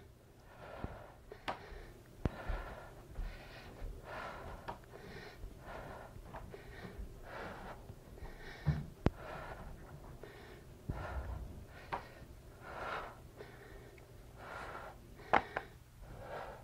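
A woman breathing hard and rhythmically through an exercise set, with a short breath about once a second. A few sharp clicks fall between the breaths.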